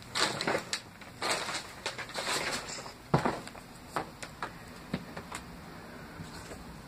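Footsteps crunching and rustling over loose paper and debris on a floor, with one sharp knock about three seconds in, then a few scattered light clicks.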